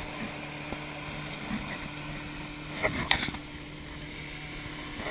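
Outboard motor on a small open boat running at a steady hum while underway, with rushing water from the hull and wake. A couple of thumps come about three seconds in.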